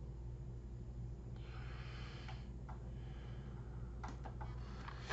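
A person's breath through the nose about a second and a half in, then a few light computer clicks near the end, over a steady low electrical hum.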